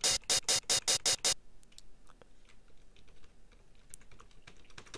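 Computer keyboard keys pressed in a quick run, about nine sharp clicks at some six a second over the first second and a half, entering a row of notes; after that only a few faint ticks.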